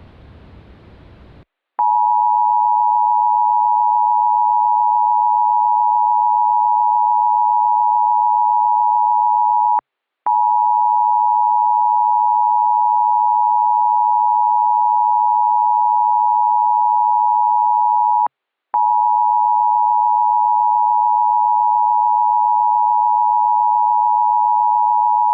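Static hiss for about a second and a half, then an emergency alert attention tone: one steady high tone sounding three times, each about eight seconds long, with short gaps between.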